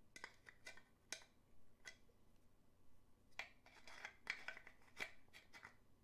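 Faint clicks and scraping of a small wooden puzzle box being turned and worked in the hands. A few sharp clicks come in the first two seconds, then a closer run of rubbing and clicking from about three and a half seconds in.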